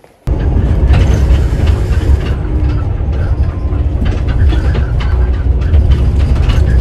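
Inside a running subway train carriage: a loud, steady low rumble with rail clatter and rattling throughout.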